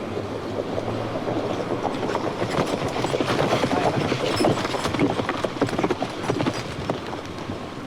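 Rapid, irregular clattering knocks over a rushing noise, growing louder to a peak around the middle and then fading.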